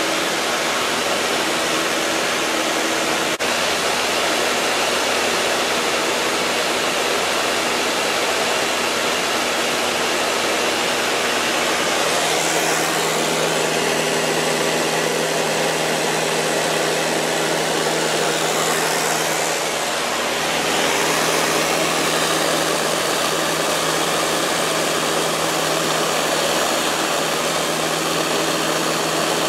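Steady, loud drone of a 1960s four-seat high-wing airplane's piston engine and propeller, with rushing air, heard inside the cabin in flight. The engine note shifts slightly about twelve seconds in.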